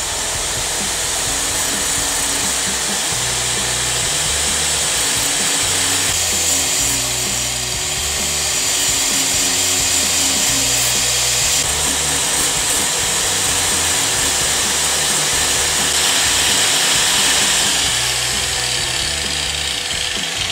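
Angle grinder running with five cut-off discs bolted together as a makeshift grinding wheel, grinding the rusty end of a steel bar with a steady hissing grind.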